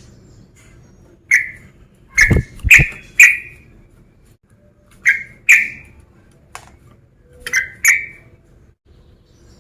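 Male yellow-vented bulbul (trucukan) calling in quick, loud bursts of short sharp notes, one to four at a time with pauses between. This is the fighting, challenge-type call used to provoke other bulbuls. Two of the notes just after two seconds in carry a low thud.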